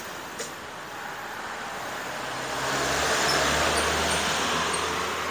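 A vehicle passing by on a road, its tyre and engine noise swelling to a peak about three seconds in and then fading. A single small click comes about half a second in.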